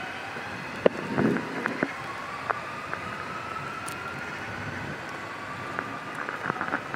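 Electric train's traction motors whining, the pitch climbing slowly as it accelerates, then stepping down and climbing again near the end. A few sharp clicks and knocks sound about a second in.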